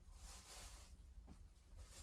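Near silence: a faint soft swishing hiss that swells twice, with one light tap about two-thirds of the way through.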